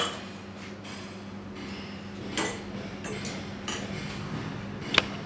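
Metal-on-china clinks of a steel tea strainer being handled and set on a ceramic cup: a few sharp taps, the loudest near the end, over a low steady hum.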